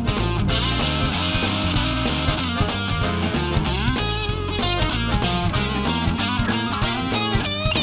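Rock music with guitar playing over a steady beat.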